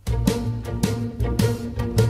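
Instrumental music starts suddenly from silence: a string orchestra with percussion, low strings holding sustained notes under sharp drum strokes about twice a second.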